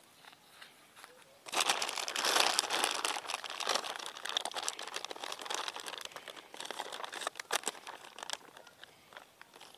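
Thin plastic packet crinkling and crackling as it is squeezed and handled, starting about one and a half seconds in, loudest soon after, then continuing in smaller crackles.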